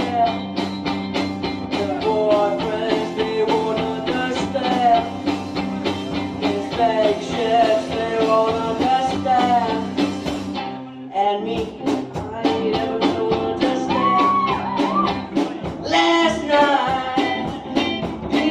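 Live rock band playing: a male singer over electric guitars, bass guitar and a drum kit, with a short break in the music about eleven seconds in before it picks up again.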